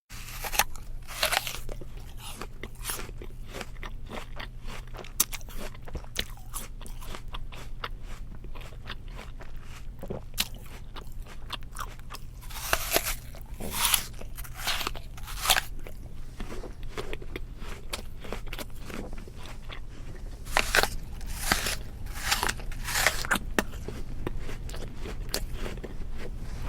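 Close-miked eating sounds of grilled lobster tail: repeated biting and chewing, with short crisp crunches and clicks throughout and louder clusters of crunches about halfway through and again a few seconds later.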